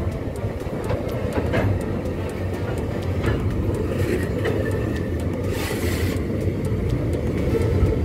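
Empty freight wagons rolling past close by: a steady, loud rumble of steel wheels on the rails with scattered clanks from the wagons, and a short hiss a little past halfway through.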